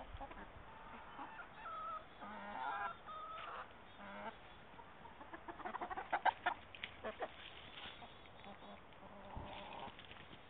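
Chickens clucking, with short pitched calls and then a run of quick clucks about six seconds in.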